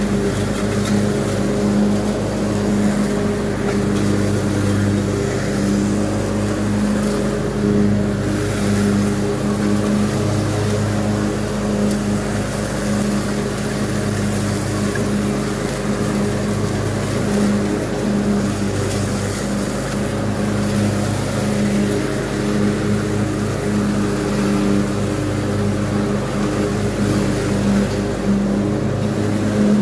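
Craftsman Z6000 zero-turn riding mower's engine running steadily while mowing, heard close up from the operator's seat.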